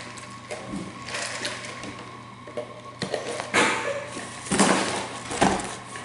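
Sucking and slurping a drink through a plastic straw from a fast-food paper cup, in a few noisy bursts, the loudest in the second half.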